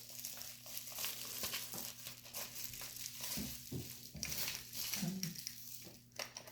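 Packaging of the Golden Snitch pocket-watch necklace rustling and crinkling as it is handled and turned over, in irregular crackles with a few soft knocks.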